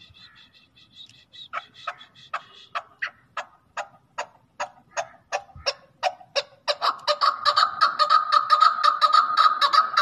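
Chukar partridge calling: a string of short chuck notes, a little over two a second, growing louder and quicker until, about two-thirds of the way in, they run together into a fast, loud series of chukar calls.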